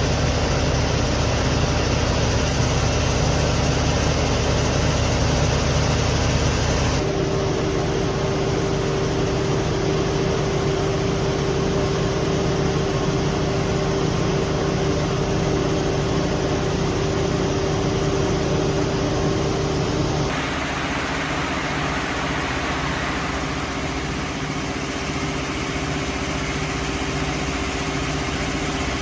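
322kW Baldor natural gas generator set running steadily. Its sound changes abruptly about 7 seconds in and again about 20 seconds in, with a steady whine over the engine in the middle stretch.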